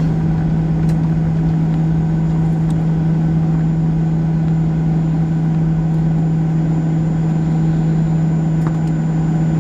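Cabin noise inside a Boeing 737-800 rolling on the runway just after landing: its CFM56 turbofan engines and the rolling airframe make a loud, steady rumble with a constant low hum.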